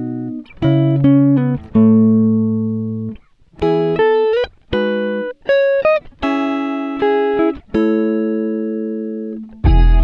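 Background music: plucked guitar chords and single notes, each struck sharply and left to ring out, with a fuller, heavier section coming in near the end.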